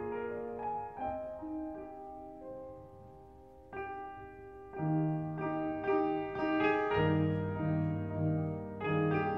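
Background piano music: a few soft notes at first, then fuller with low bass notes from about five seconds in.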